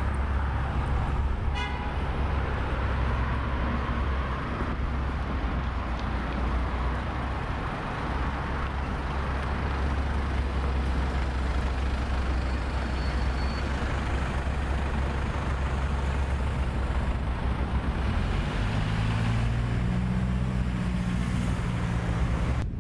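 Steady road traffic noise with a low rumble of wind on the microphone. In the last few seconds a vehicle engine's low drone comes in and rises slightly in pitch.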